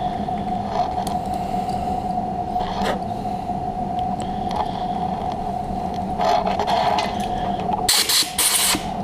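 Small hand deburring tool scraping the edge of a milled aluminum bracket over a steady background hum. About eight seconds in come two short, loud hissing blasts from a compressed-air blow gun blowing the chips off the part.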